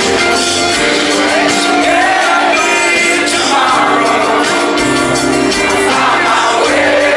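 Live band playing, with a male lead vocal over strummed acoustic guitar, recorded from among the crowd.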